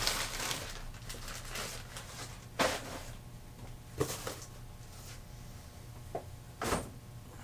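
Tools and a box being handled on a table: a scraping rustle at the start, then a few separate knocks and clunks about two and a half, four and nearly seven seconds in.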